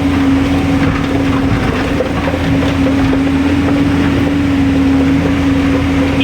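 Hydraulic excavator's diesel engine running steadily, with a constant hum that holds one pitch throughout.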